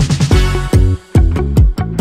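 Upbeat background music with a steady kick-drum beat and bass. The beat drops out briefly about a second in, then comes back.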